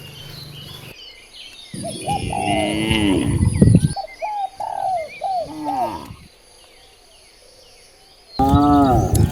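Cattle mooing: a long moo about two seconds in, a run of short, higher calls over the next two seconds, then another loud moo near the end. Birds chirp faintly in the background.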